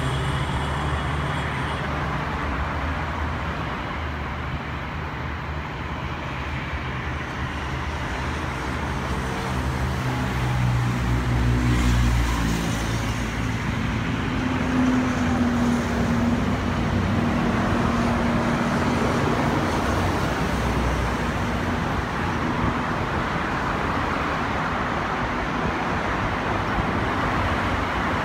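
Distant jet airliner engines running: a steady rushing noise with a low hum that slowly drops in pitch, growing louder about ten seconds in.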